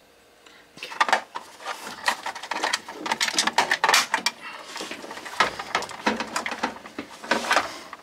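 Plastic housing of a Whirlpool Duet washer's control board being handled and its top cover pressed on: a busy run of plastic clicks, knocks and rattles as the cover's clips snap into place.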